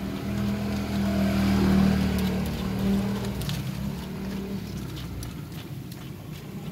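A motor vehicle passing close by: its engine drone swells over the first two seconds, then fades away by about four and a half seconds in.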